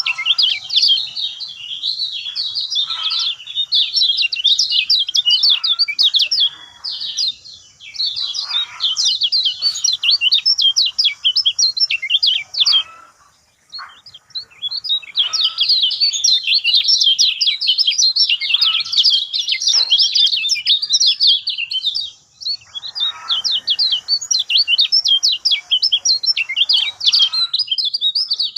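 Lemon-bellied white-eye (kecial kuning) singing a fast, continuous chattering song of rapid high notes, breaking off briefly about halfway through.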